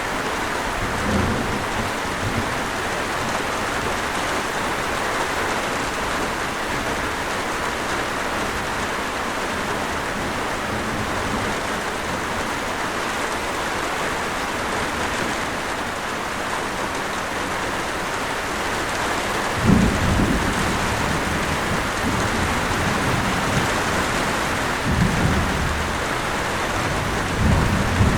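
Steady rain falling, with low rumbles of thunder: a faint one about a second in, then a rumble that starts sharply about 20 seconds in and two more near the end.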